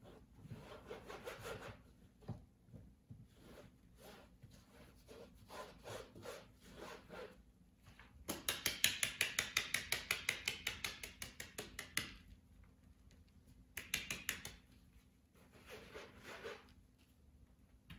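Damp black powder being rubbed by hand through a wooden-framed granulating screen, a scratchy rubbing of grains on mesh. About eight seconds in, the screen box is shaken for about four seconds in fast, even strokes, roughly seven a second, followed by shorter bursts of rubbing.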